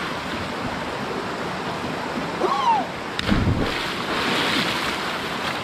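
Steady rushing of flowing water, with a brief pitched cry about halfway through and a single knock just after it.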